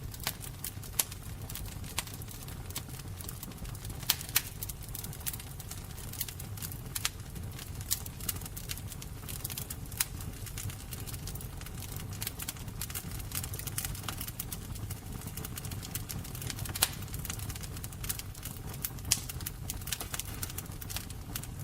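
A fire crackling, with irregular sharp pops and snaps, a few of them louder, over a low steady rumble.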